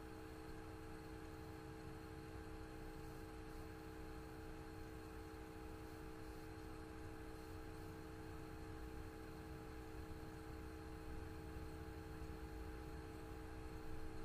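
Faint steady electrical hum made of several fixed tones, over a low even hiss: the recording's background noise, with no other sound.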